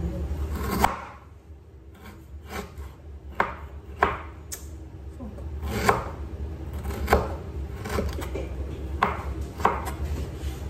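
Chef's knife chopping young jackfruit on a wooden cutting board: sharp knocks of the blade striking through the fruit onto the board, several at uneven intervals.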